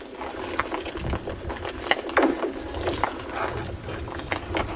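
Thick lake ice cracking and singing under tension: a run of sharp snaps, several trailing off in a falling, zinging pitch, over a low rumble.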